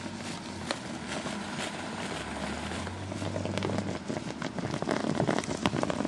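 Distilled water boiling hard in a small electrically heated steam generator running at about 800 watts: a dense crackling and popping over a steam hiss. The crackles grow thicker and louder toward the end.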